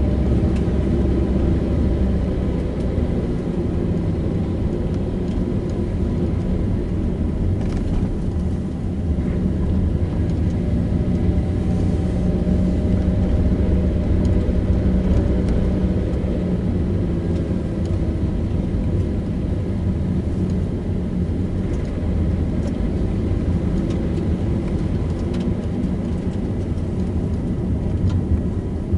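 A car driving at steady speed: a continuous low engine hum with tyre and road noise.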